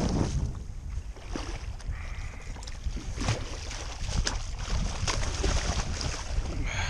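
Water splashing as a hooked black drum thrashes at the surface beside a kayak and is scooped into a landing net, over wind rumbling on the microphone.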